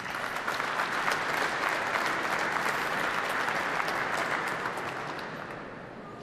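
Audience applauding in a large hall, swelling quickly at the start and fading away near the end.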